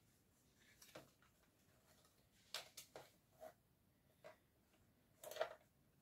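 Faint handling of a paper card on a scoring board: a few light taps and paper rustles, with a brief louder rustle about five seconds in.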